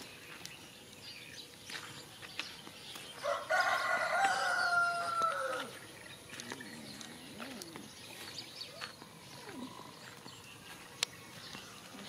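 A rooster crows once, a single call of about two and a half seconds that falls in pitch at the end, a few seconds in. Around it are faint crunching footsteps on a dirt road.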